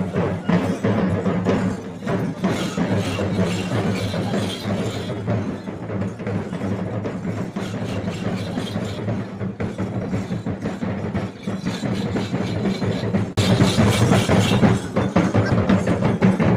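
Drum ensemble playing a fast, driving rhythm, with a steady low drone under the beats; it gets louder about thirteen seconds in.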